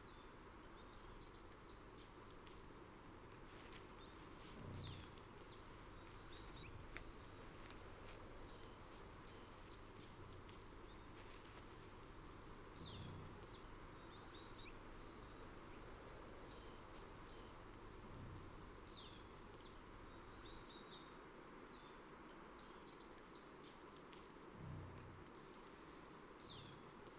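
Faint outdoor ambience: small birds chirping and twittering throughout over a low steady hiss, with a few soft low bumps.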